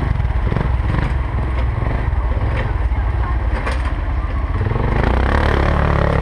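4x4 ATV engine running under way, with a few sharp knocks over the top, and the engine note gets louder about five seconds in.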